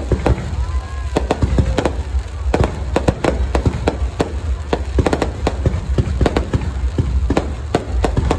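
Fireworks going off: a rapid, irregular string of sharp bangs and crackles over a steady low rumble.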